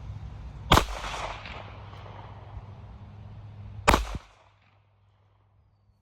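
Two shots from a Ruger LCP .380 ACP pocket pistol, about three seconds apart, each a sharp crack with a short ringing echo after it.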